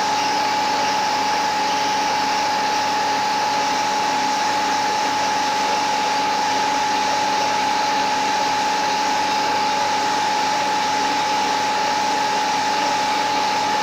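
Paper slitting machine running: a steady, even machine hiss with a constant high-pitched whine that does not change.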